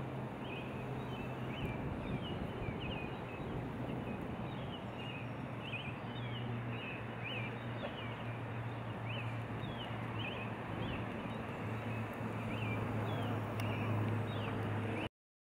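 Lakeside outdoor ambience: birds giving many short, falling chirps, one or two a second, over a steady low hum and an even wash of background noise. It cuts off abruptly just before the end.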